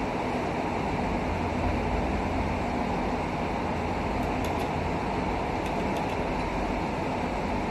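Steady background hum and hiss, like a fan or room machinery, with a few faint light clicks in the second half as wire connectors on a circuit board are handled.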